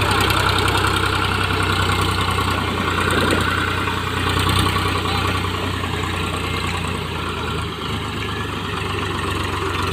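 Powertrac tractor's diesel engine running steadily with a deep, even hum that shifts about three quarters of the way through.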